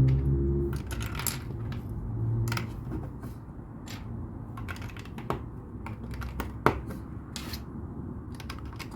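LEGO plastic bricks clicking and rattling as they are handled, sorted and pressed together, in irregular sharp clicks with one louder snap about two-thirds of the way through. A low rumble runs underneath.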